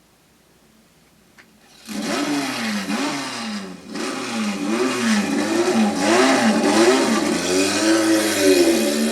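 Near silence and a faint click, then about two seconds in a recording of racing cars starts playing through a JVC RC-M90 boombox's speakers: engines revving, their pitch rising and falling over and over.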